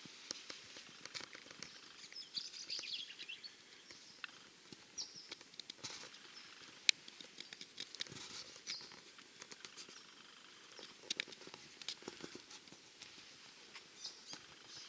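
Quiet outdoor ambience: faint bird chirps now and then, over scattered light clicks and ticks.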